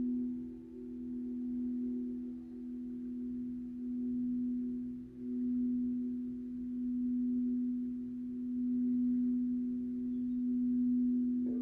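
Meditative drone music: one low steady tone with a few faint overtones, swelling and fading gently. A second, higher note comes in near the end.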